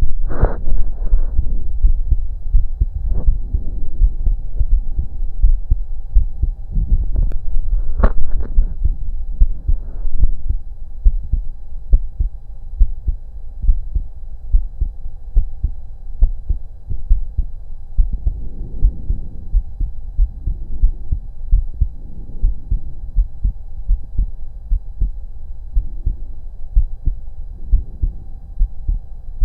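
Human heartbeat heard through a stethoscope on the chest: a steady run of low thudding beats over a faint steady hum, with a few brief scratchy rubbing noises near the start and about eight seconds in.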